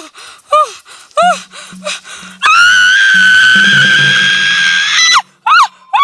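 A woman's long, loud scream, held on one pitch for about two and a half seconds from about halfway in, over background music. Short rising-and-falling cries repeat about twice a second before and after it.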